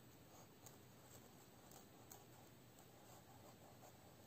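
Near silence: faint room tone with a few very faint ticks.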